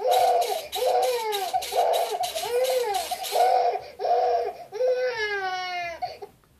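Recorded baby crying played through the electronic jack-in-the-box's speaker: a run of short wails in quick succession, then one longer cry falling in pitch about five seconds in that cuts off near the end.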